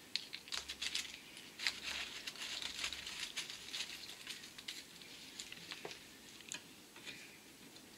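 Faint, irregular crinkling and small clicks of something being handled, densest in the first few seconds and thinning out after.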